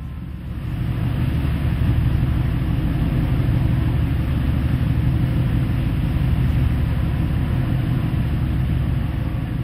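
Steady deep rumble of a ship's engine under the rush of churning sea water along the hull, swelling about a second in and then holding steady.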